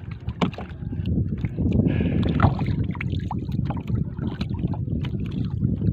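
Wind rumbling on the microphone aboard a small outrigger boat at sea, with water lapping and small clicks and knocks from the boat and hands.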